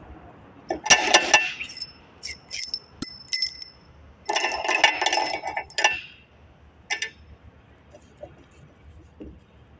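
Steel tools and parts of a hydraulic motor being taken apart clinking and ringing against metal: a clatter about a second in, single clinks after it, a longer clatter from about four to six seconds in, and one more clink near seven seconds.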